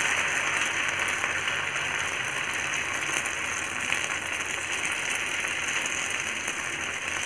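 Varai (barnyard millet) dosa batter sizzling in hot oil on an iron tava while a ladle spreads it round: a steady frying hiss that eases slightly over the few seconds.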